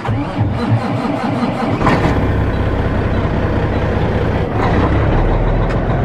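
Semi truck's diesel engine cold-started in about 20-degree weather: the starter cranks for about two seconds, then the engine catches and settles into a steady idle.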